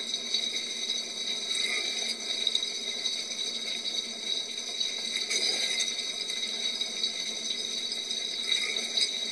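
Dishwasher mid-wash, heard from inside the tub: a steady spray of water striking the dishes and walls, with light rattling.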